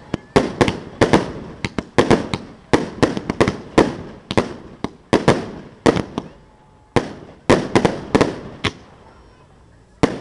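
Fireworks display: a rapid, irregular series of sharp bangs from bursting fireworks, each followed by a short echoing decay, thinning out and pausing for about a second near the end.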